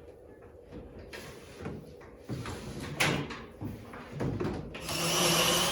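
Scattered knocks and clunks of material and tools being handled, the sharpest about three seconds in. Near the end a power tool starts and runs with a steady whine.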